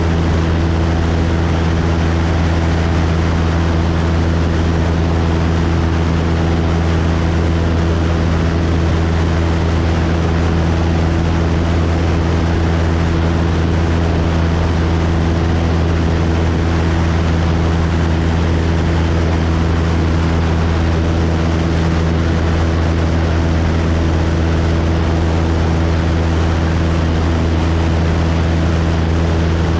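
Cessna 172's piston engine and propeller droning steadily in flight: a low, even hum with a steady hiss over it.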